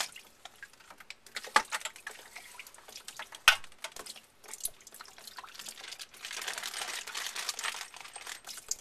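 A length of half-inch PEX plastic tubing being handled: a few sharp taps and knocks of the pipe, the loudest about three and a half seconds in, then a rustling scrape from about six seconds in.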